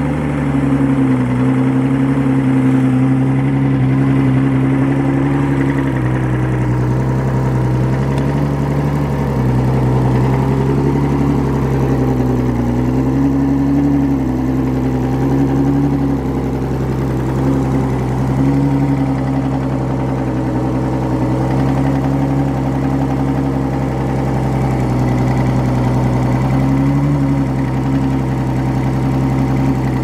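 2000 Evinrude 225 FICHT V6 two-stroke outboard idling steadily, its engine speed wavering slightly up and down.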